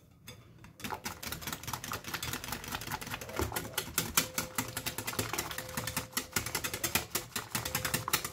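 Wire whisk beating crêpe batter in a glass bowl: a fast, steady run of clicks as the wires strike the glass, starting about a second in.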